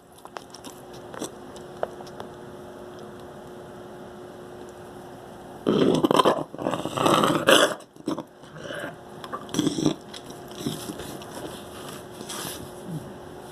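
A dog coughing: after a quiet stretch, a hacking fit of several rapid, loud, rasping coughs about halfway through, lasting about two seconds, followed by a few shorter, fainter coughs.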